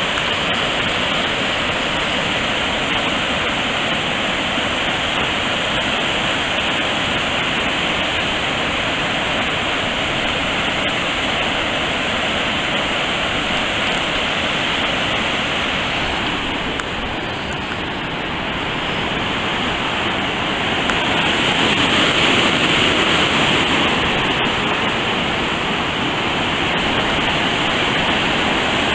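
Floodwater after heavy rain rushing over a lake spillway and through rocky white-water rapids below, a steady, loud rush of water. It eases a little about two-thirds of the way in, then grows louder again.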